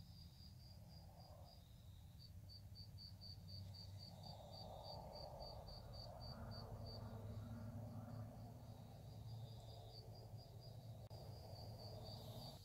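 Crickets chirping at night: a faint, regular train of high chirps, about three a second, over a low background hiss.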